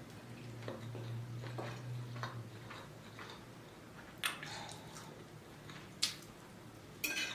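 Quiet eating of seafood linguine: chewing with faint small mouth sounds, a low hum for the first two seconds or so, and a few sharp clicks about four seconds in, about six seconds in and near the end.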